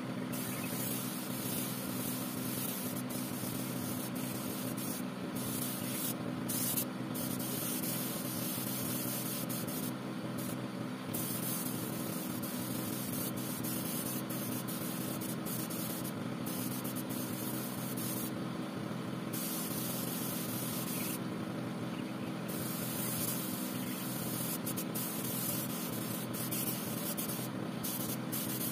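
Compressed-air spray gun hissing as it sprays melamine gloss lacquer, the hiss cutting out briefly several times, over a steady machine hum.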